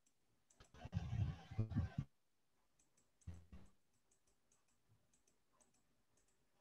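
Faint, light computer mouse clicks in an irregular run, with two short muffled bursts of noise in the first half.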